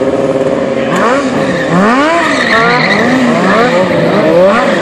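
Sport motorcycle engines revving during stunt riding. For about the first second the engine is held at a steady pitch. After that the revs rise and fall quickly over and over, and more than one bike's engine overlaps.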